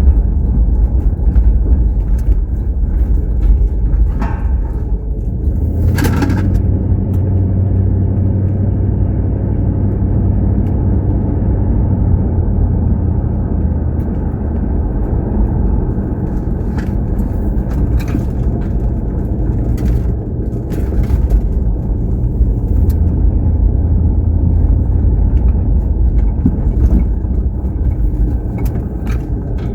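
A motor vehicle driving: a steady low rumble of engine and road noise, with a few brief clicks and knocks.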